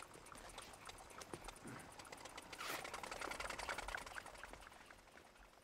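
Small moped engine putt-putting with a fast, even ticking. It grows louder about halfway through, then fades away as the moped rides off.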